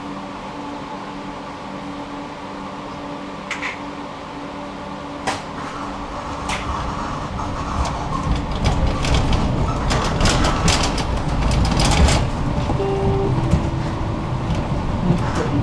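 Electric tram humming steadily while standing, with a few sharp clacks. From about six seconds in it gets under way: the rumble of wheels on rail builds and grows louder, with many rattles and clacks.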